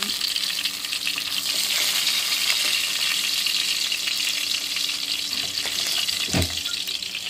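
Masala-coated fish pieces sizzling steadily as they shallow-fry in oil, with a spatula scraping the pan and turning a piece over.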